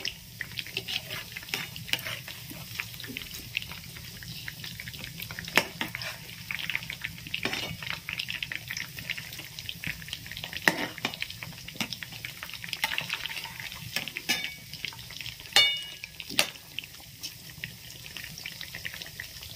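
Battered chicken pieces deep-frying in hot oil on low heat, with a steady crackling sizzle. A perforated metal slotted spoon turns the pieces, scraping and clinking against the kadai now and then. The loudest clink comes about three-quarters of the way through, with a short ring.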